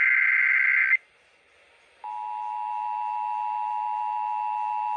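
The last burst of an Emergency Alert System SAME header, a shrill digital warble, cuts off about a second in. After a second's pause the EAS two-tone attention signal (853 and 960 Hz together) starts and holds steady.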